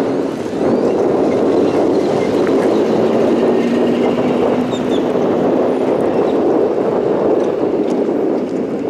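Steady road and wind rumble of a moving vehicle, with a faint engine drone that fades out about six seconds in.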